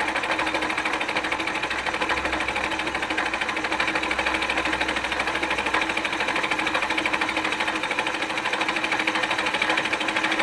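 Milling machine face-cutting a cast iron exhaust manifold: a steady, even, rapidly repeating cutting sound over a constant machine hum.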